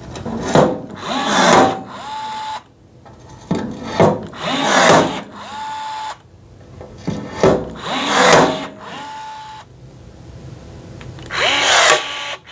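Milwaukee M12 cordless rivet gun pulling blind rivets in repeated cycles. In each one the motor whirs with its pitch sagging and wavering under load, then runs on with a short steady whine before stopping. Three full cycles come about three and a half seconds apart, and a fourth starts near the end.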